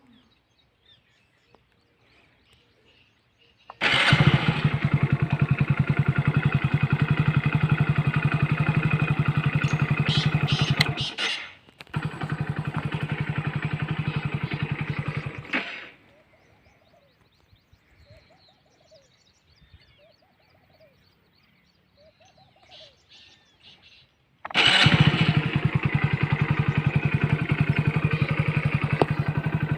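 Hero Splendor Plus single-cylinder motorcycle engine starting abruptly and idling with an even pulse, cutting off, restarting a moment later and cutting off again, then after a pause of several seconds starting and idling once more. Faint bird chirps are heard in the quiet gap.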